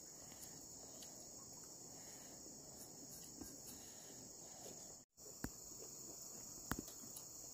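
Faint, steady high-pitched chorus of insects, typical of crickets at night. The sound drops out briefly about five seconds in, and a few light clicks follow.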